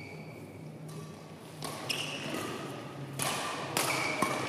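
Badminton rally: rackets striking the shuttlecock again and again, several sharp hits from about a second in, with shoes squeaking on the court floor. The hall's echo follows the hits.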